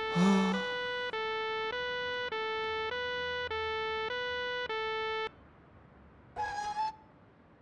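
Electronic two-note figure: a tone alternating with a slightly lower one about every half second, stopping abruptly a little after five seconds. A brief louder noisy sound comes right at the start, and a short squeak near the end.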